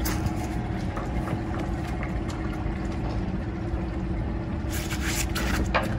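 Small outboard motor idling steadily, with a few light knocks near the end.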